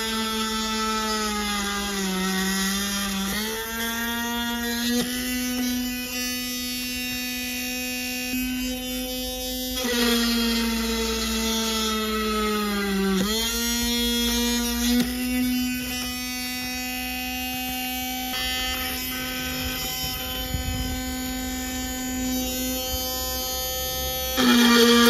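Tamiya Sport-Tuned 380 DC motor of a mini drill press spinning a tiny drill bit, a steady high whine with many overtones. Its pitch sags twice, about two seconds in and again about halfway, as the bit is pushed into wood under load, then recovers. It grows louder near the end.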